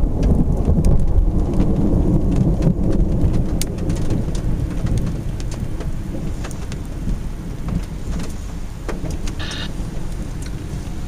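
Thunder rumbling low, loudest in the first few seconds and then slowly easing, over rain with scattered drop ticks.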